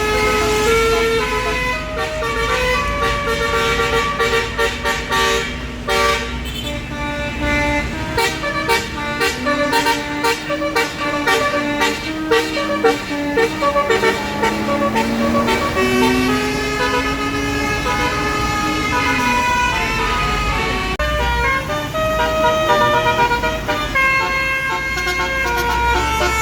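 Bus's Basuri telolet horn playing a melody: a run of multi-tone horn notes stepping from pitch to pitch, with quick repeated pulses in the first half and a low siren-like tone sliding up and down through the middle.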